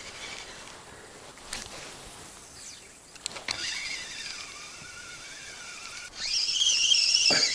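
Spinning reel whirring as line is cranked in, after a few sharp clicks: a steady whine that jumps higher and louder about six seconds in, then slides down and stops, the reel being wound fast as a chub is hooked.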